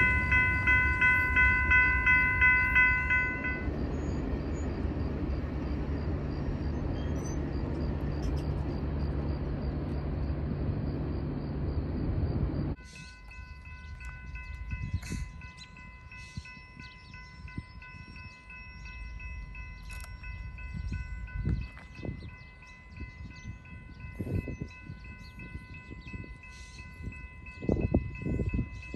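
Railroad grade-crossing bell ringing about twice a second over the rumble of a passing train; the bell stops a few seconds in while the train keeps rolling by. About 13 s in the train noise cuts off abruptly, and a crossing bell rings on, quieter and steady.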